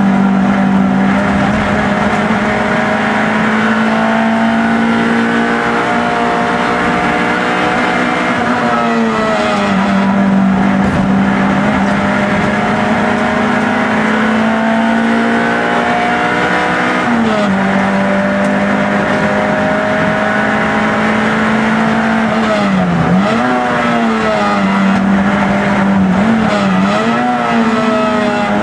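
Peugeot 106 race car's engine heard from inside the cabin, running hard at high revs. The pitch drops around 9 s and again around 17 s, then dips sharply and climbs back twice near the end as the driver lifts off and gets back on the throttle.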